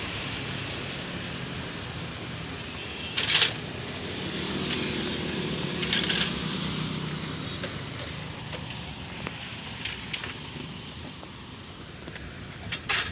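Road traffic going by, with a vehicle's engine swelling as it passes about four to seven seconds in. A few brief sharp clatters stand out, the loudest about three seconds in.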